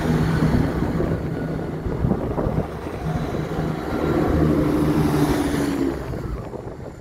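Chiltern Railways Class 168 diesel multiple unit pulling away past the platform, its underfloor diesel engines giving a steady low drone over the rumble of the wheels, fading after about six seconds as the last carriages go by. Some wind on the microphone.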